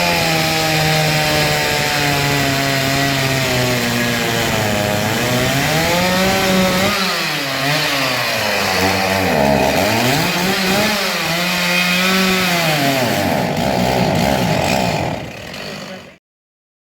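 Two-stroke chainsaw cutting wood, its engine pitch sagging and rising again several times as it works under load in the cut. It cuts off suddenly near the end.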